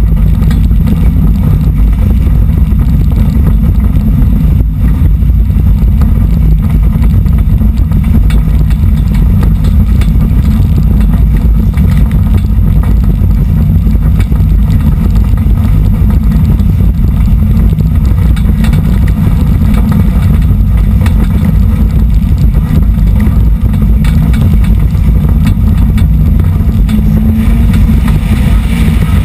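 Four-cylinder dirt-track race car's engine running as the car drives, heard from inside the cockpit: a loud, steady low drone.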